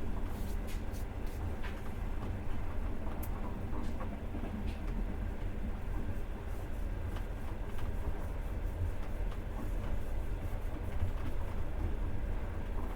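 Passenger train carriage in motion, heard from inside: a steady low rumble of wheels on the rails, with scattered light clicks and rattles.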